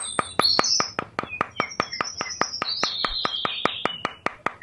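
Background music: a steady fast ticking beat, about seven ticks a second, with high chirping sounds over it.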